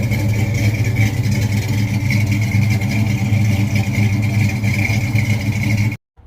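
Engine running steadily at a constant speed, loud and unvarying, cut off abruptly near the end.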